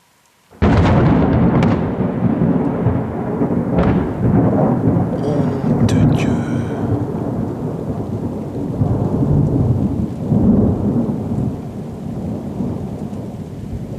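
Thunder from a close lightning strike: a sudden loud crack about half a second in, then a long rolling rumble that slowly eases.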